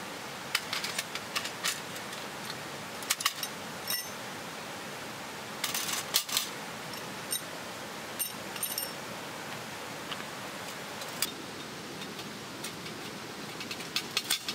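Thin metal plates clicking and clinking against each other as they are slid out of a canvas pouch and handled, with cloth rustling, in scattered short bursts over a steady background hiss.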